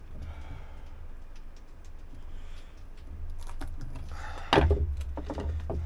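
Metal hand tools, an adjustable wrench and a screwdriver, clicking and scraping on an old windlass deck switch housing as it is pried apart to free a rubber boot stuck fast with age. About four and a half seconds in comes a louder burst of scraping and clatter. A low steady hum runs underneath.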